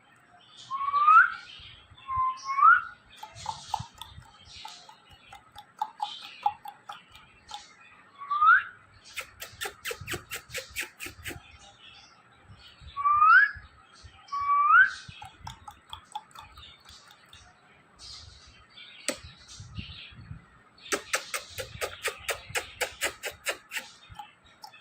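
Ringneck parrot giving five short whistles that rise in pitch. Between them come two runs of rapid clicks, about eight a second, each lasting a few seconds.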